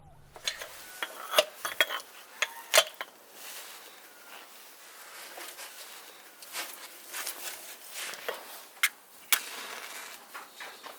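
Irregular clinks and knocks of kitchen utensils and dishes being handled during food preparation, with a few sharper clacks standing out.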